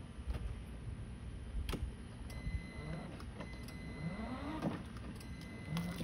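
Electric drive motor and gearbox of a ride-on toy Jeep whining as it creeps forward, its plastic wheels rolling on concrete.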